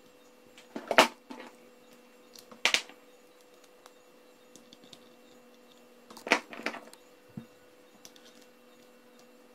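Sharp clicks and knocks of metal and plastic parts being handled: a copper bus bar fitted across two supercapacitor terminals and a nut tightened with a small adjustable wrench. Two single knocks in the first three seconds, then a quick cluster a little past the middle.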